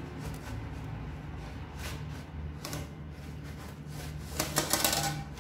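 A metal spatula and baking tray scraping and clicking against a wire oven rack as a pizza is slid off the tray onto the rack. The clicks are scattered at first, then come as a louder rattling run about four seconds in.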